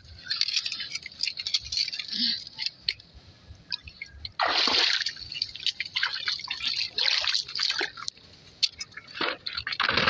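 Shallow muddy water splashing and sloshing in short, uneven bursts as a person wades and moves about in it, with one louder, longer splash about four and a half seconds in.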